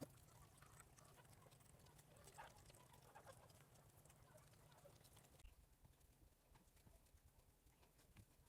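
Near silence: faint room tone with a few soft, short sounds in the first half and a low hum that drops away about five and a half seconds in.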